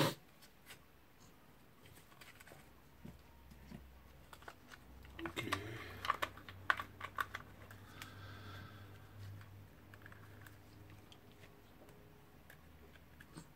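Small all-metal gears and the gear housing of a cordless drill's gearbox clicking and rattling as they are handled and fitted together, with a run of quick clicks about halfway through.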